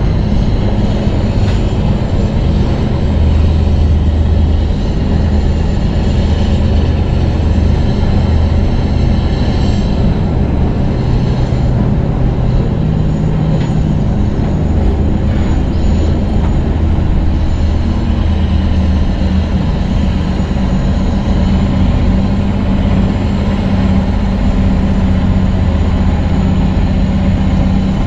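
Semi truck's diesel engine running steadily with a deep, even hum, over road and wind noise.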